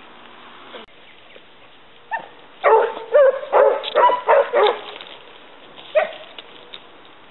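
Pack of Basset Hounds giving tongue while hunting a hare. A single bay comes about two seconds in, then several hounds bay together in a loud overlapping burst of about two seconds, and one more bay follows near the end.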